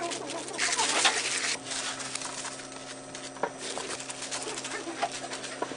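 Plastic-gloved hands handling sliced sandwich bread on a metal tray: a rustling, scuffing haze, louder about a second in, with a few sharp clicks later, over a steady low hum.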